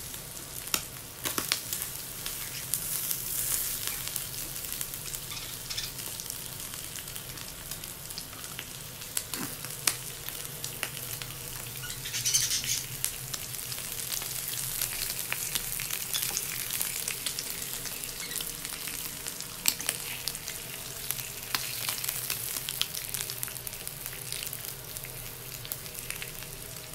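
Sliced meat sizzling on an electric tabletop grill plate: a steady frying hiss with scattered sharp pops and clicks.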